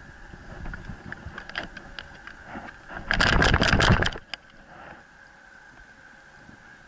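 A wet dog shaking itself off, with a camera strapped to it: about a second of rapid, rhythmic flapping and rattling, some six shakes, midway through. Softer rustling and knocks come before it, and a faint steady hiss follows.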